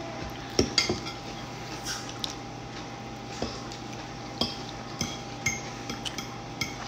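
Metal fork clinking and scraping against a ceramic dinner plate while eating, in about nine short scattered clicks, over a steady hum.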